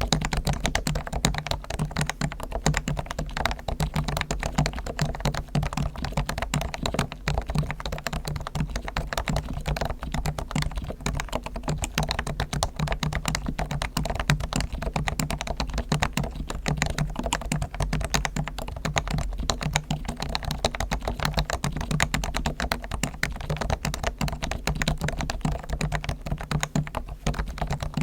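Continuous fast typing on a Realforce R1 Topre keyboard with fully lubed springs and sliders (Krytox, Dri Kote), tuned stabilizers and sound-dampening foam: a dense, unbroken stream of keystrokes.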